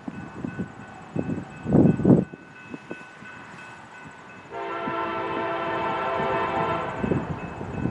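Diesel freight locomotive's multi-chime air horn sounding one long blast of about two and a half seconds, starting just past halfway through. Before it comes a short, loud low rumble about two seconds in.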